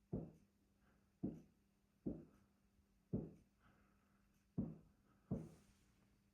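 Distant fireworks bangs, heard muffled from indoors: six dull booms at uneven intervals, each dying away quickly.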